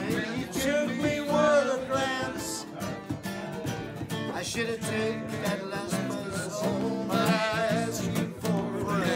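Acoustic guitar strummed in a live music session, with a voice singing along near the start and again toward the end.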